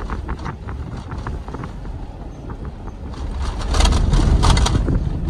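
Car driving along a sandy desert track, heard from inside with a window open: a steady low rumble of engine and tyres with rushing noise over it. The rushing grows louder about three and a half seconds in.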